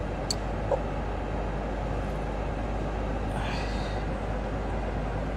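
Steady low rumble with hiss on top. A sharp click comes about a third of a second in, and a faint short tone just under a second in.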